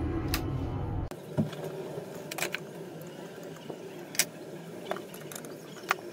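Background music stops abruptly about a second in. After it, a faint steady hum carries on, with scattered sharp light clicks, a few of them louder than the rest.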